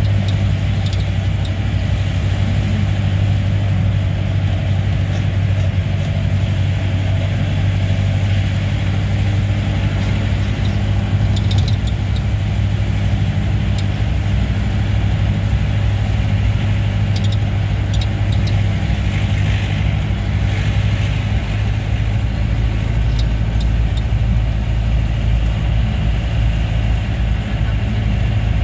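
Jeep engine running steadily under way, with a constant low hum heard from inside the cabin. A few brief rattles sound as it travels over the rough forest track.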